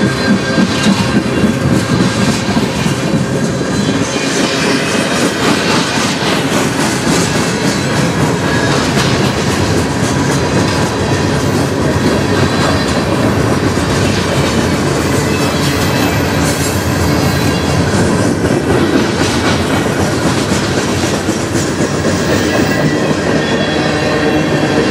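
Freight cars of a manifest train rolling past close by: a steady rumble and clatter of steel wheels on the rails, with thin squealing tones from the wheels running through it.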